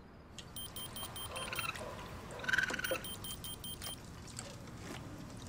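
Rapid, evenly pulsed high electronic beeps in two short runs, the sound of a radio-collar data download connecting, over faint rustling. A brief squeak comes about two and a half seconds in.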